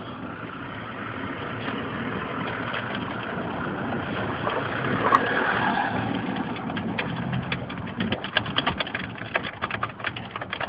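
Nissan car engine started with a jiggler key and running. From about seven seconds in, a rapid irregular clicking takes over.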